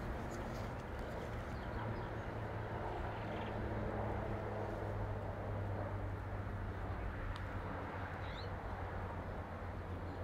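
Steady outdoor background of a low hum and even rumble, like distant traffic, with a few faint bird chirps.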